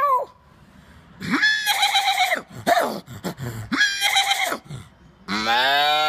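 A man imitating animal calls with his voice: a string of short, high, pitched calls, then a long, low, steady call starting about five seconds in.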